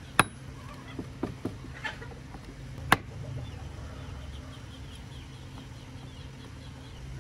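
Sharp knocks of a forged steel throwing star striking and biting into a weathered wooden beam: two loud ones, just after the start and about three seconds in, with a few lighter taps between. A steady low hum runs underneath.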